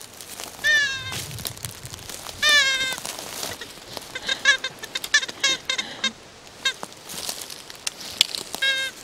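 A predator call (fox whistle) blown to imitate a distressed rabbit. It gives high, wavering squeals: two drawn-out cries, then a quick run of short squeaks, and one more cry near the end.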